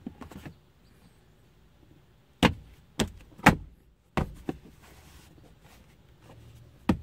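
Rear plastic trim cover of a 2013–2017 Honda Accord center console being pushed home by hand: sharp plastic clicks and knocks as its clips snap into place. There are about five in two seconds, starting a couple of seconds in, and one more near the end.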